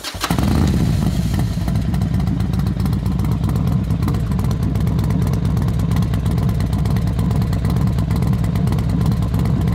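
Motorcycle engine running steadily and loud, with a low, rapid beat.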